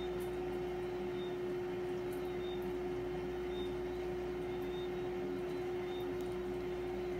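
Steady background hum with one constant mid-pitched tone, unchanging throughout; no speech.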